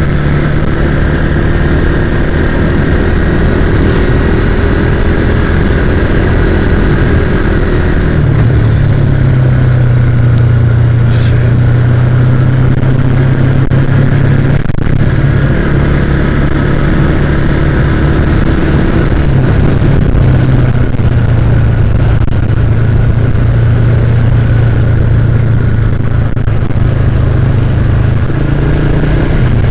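Motorcycle engine running steadily while riding on a smooth paved road, under a steady rush of wind and road noise. The engine note shifts lower and stronger about eight seconds in.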